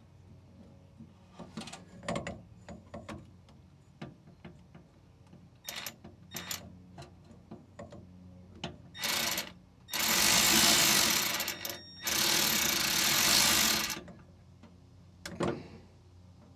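Cordless ratchet running in two bursts of about two seconds each, tightening a hose clamp over a barb fitting, with scattered clicks and knocks of the tool before and after.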